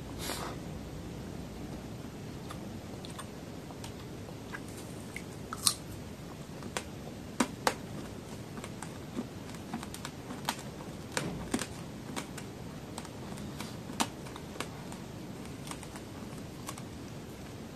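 Close-miked chewing of a candy apple's hard candy shell: irregular sharp clicks and crackles with sticky mouth sounds, a few louder cracks around six and seven seconds in. The candy is sticking to the teeth.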